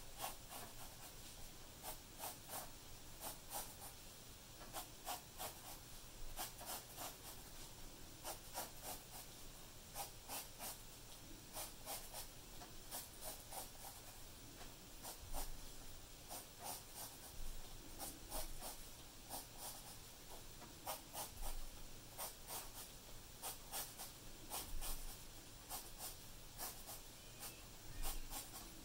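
Graphite pencil scratching on paper in quick, short strokes that come in clusters with brief pauses, as lines of a drawing are traced over and darkened.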